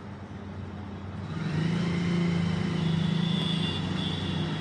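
A motor vehicle's engine running close by. It grows louder about a second in and then holds a steady low tone.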